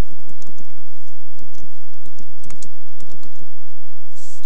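Typing on a computer keyboard: a quick, irregular run of keystroke clicks over a faint steady hum.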